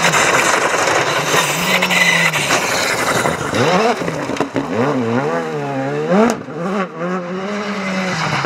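Rally2 cars, Škoda Fabia and Citroën C3, driven flat out on a gravel stage one after another. The engines rev hard, with pitch swinging quickly up and down through gear changes and lifts, over the sound of tyres working on loose gravel and mud. There is a single sharp crack about six seconds in.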